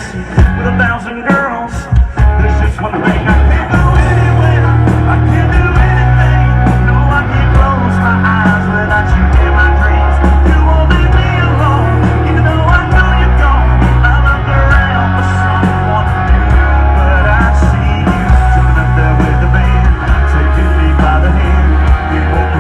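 Live band music played loud through a concert sound system: a singing voice over electric guitars and heavy bass. The full band settles into a steady, full sound about four seconds in.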